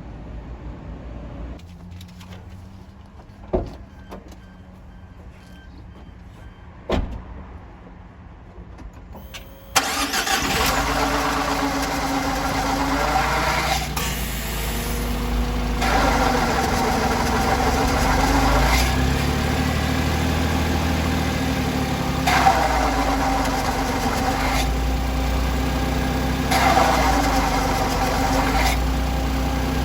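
Two sharp clicks, then about ten seconds in a Suzuki Every kei van's engine starts and runs with a loud, harsh abnormal noise that swells a few times, tagged by the uploader as clutch noise.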